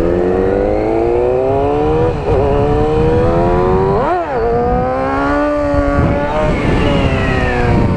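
Kawasaki Ninja ZX-6R's inline-four engine accelerating through the gears, its pitch climbing with a brief drop at each upshift about two and four seconds in, then falling steadily near the end as the throttle eases off. Wind rushes over the microphone underneath.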